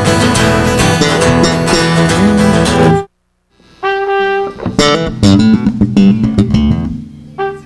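Live band playing loudly at a sound check, guitar to the fore. The band stops dead about three seconds in. After a brief silence comes a single held note, then loose, choppy chords and stabs.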